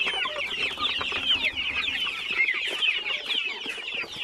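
A crowded flock of young, half-grown chickens cheeping continuously, many short high chirps overlapping.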